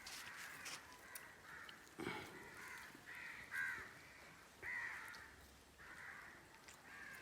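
Crows cawing faintly, a string of short caws repeating every half second to a second.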